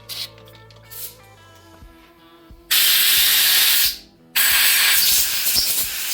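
Two long, loud hissing blasts from a spray nozzle cleaning a brake part: the first lasts about a second, and the second starts about four seconds in and keeps going.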